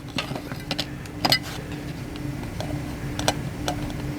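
Scattered light clicks and taps, about six in four seconds, of trading cards and their packaging being handled, over a steady low hum.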